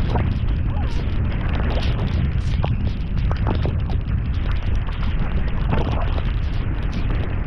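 Hard rain with wind buffeting the microphone: a steady low rumble of wind noise under a hiss of rain, with scattered sharp ticks of drops striking close by.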